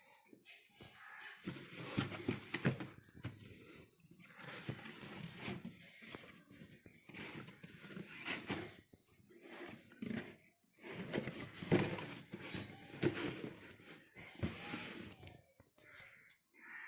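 Packaging being handled: irregular rustling and crinkling with a few light knocks, coming and going in short bursts.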